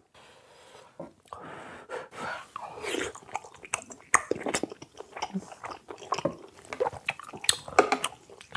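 Close-miked chewing of chewy Korean rice cake (tteok) in spicy ramen broth, with many wet, sticky mouth clicks.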